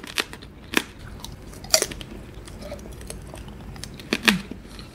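Biting and chewing a candied strawberry (tanghulu): the hard glassy sugar shell cracks and crunches in sharp snaps. The loudest cracks come just under a second in, near two seconds in and about four seconds in.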